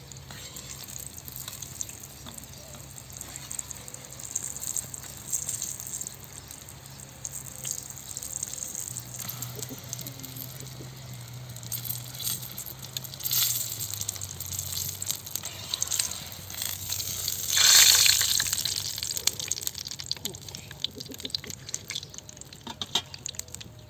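Kitchen work sounds: a steady high hiss with scattered clicks and light knocks, and a louder gushing rush of noise lasting about a second, about three-quarters of the way through.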